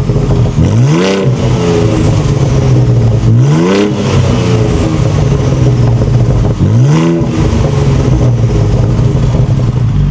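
Ford Bronco Raptor's 3.0-litre twin-turbo V6 idling through its exhaust, revved three times in short blips that rise quickly and fall back to idle.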